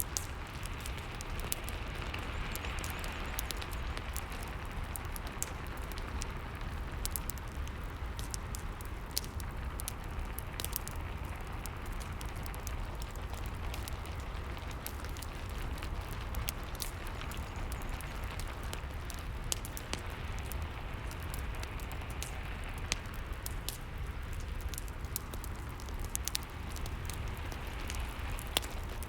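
Steady rain falling together with a fireplace fire crackling in scattered sharp pops.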